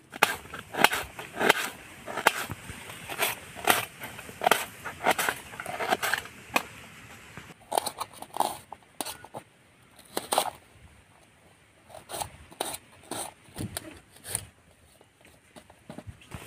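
A small knife slicing red onions over a steel plate: a run of crisp cutting and scraping strokes, fairly regular in the first half and more scattered later.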